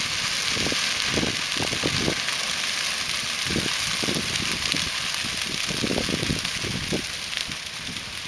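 Dry little bluestem prairie grass burning in a controlled burn: a dense, steady crackling hiss of the flame front.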